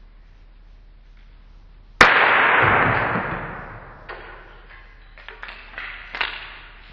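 A CD or DVD bent until it shatters: one sharp crack about two seconds in with a fading hiss of fragments spraying, then a scatter of small clicks as the pieces land.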